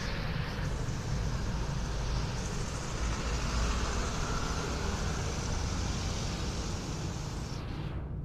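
A vehicle running: a steady low rumble with a loud even hiss over it, and the hiss cuts off suddenly near the end.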